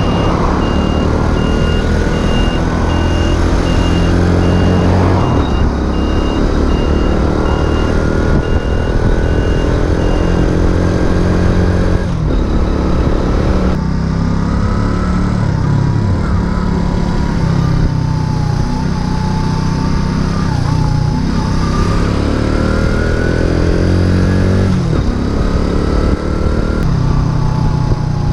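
Racer Alpha RC50 moped's small single-cylinder four-stroke engine under way, revving up through the gears with the pitch climbing and then dropping back at each shift, with wind on the microphone. A regular high beeping goes on alongside for the first ten seconds or so, then stops.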